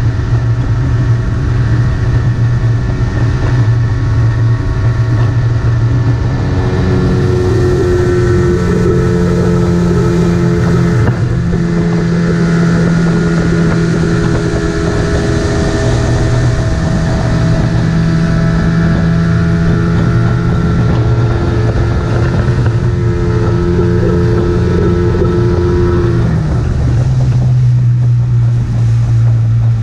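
Outboard motor running flat out, pushing a small skiff over the lake, a steady drone with wind buffeting the microphone and water rushing past the hull. The engine note shifts as the boat turns, a higher tone riding over it through most of the run.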